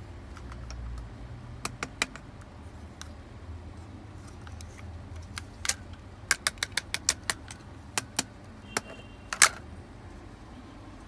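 Sharp hard-plastic clicks and clacks of toy shape pieces being handled and dropped into a plastic shape sorter: a few near the start, a quick run of about eight in the middle, then scattered single knocks with the loudest near the end.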